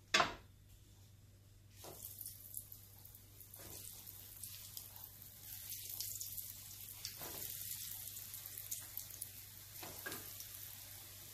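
Breadcrumbed fish cutlets sizzling and crackling as they deep-fry in hot oil in a frying pan, with a fresh surge of sizzling each time another cutlet is lowered in, about four times. A single sharp thump right at the start.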